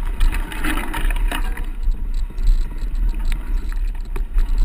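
Wind rumbling on the microphone and the rattle of a mountain bike being ridden over a dirt trail, with scattered clicks and knocks.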